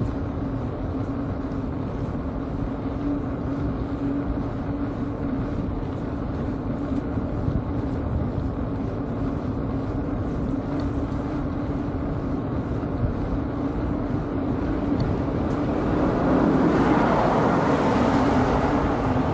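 Steady rolling and wind noise from a bicycle moving along an asphalt road, with a constant low hum underneath. In the last few seconds an oncoming van's road noise swells up loudly as it approaches.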